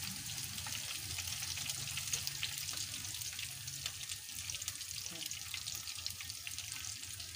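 Chicken pieces deep-frying in hot oil, a dense, steady crackle and sizzle of bubbling oil over a low hum.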